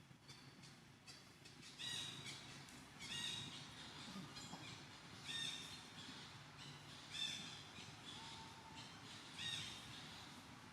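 An animal calling: five short, harsh cries about two seconds apart.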